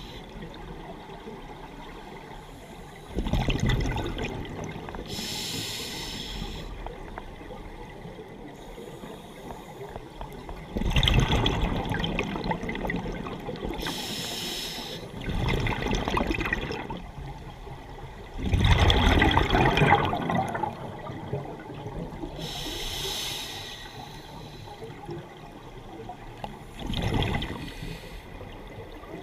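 Scuba diver breathing through a regulator underwater: a hissing inhale, then a rough, gurgling rush of exhaled bubbles, repeating several times.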